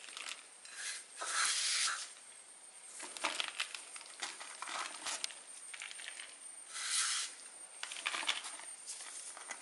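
Crisp fried grated coconut scattered by hand over fried chicken pieces on a banana leaf: the leaf rustles and crumbs fall with small ticks, in two louder rustling bursts, about one and a half seconds in and about seven seconds in.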